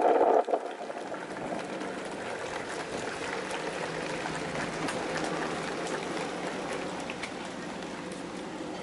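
Crowd in the stands applauding: a steady spatter of many hands clapping. It follows a brief louder sound in the first half-second.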